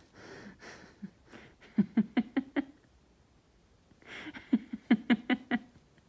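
A person laughing: soft breathy in-breaths, then a quick run of about six "ha" pulses about two seconds in, and a second, longer run of laughter about four and a half seconds in.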